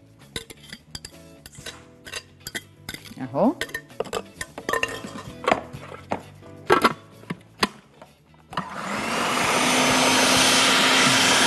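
Light clinks and knocks of kitchen utensils, then about 8.5 seconds in an electric kitchen mixer starts and runs steadily, mashing bananas into a cake batter.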